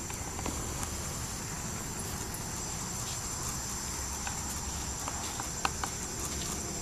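A steady high-pitched insect chorus over a low rumble, with scattered light clicks and ticks that come more often near the end.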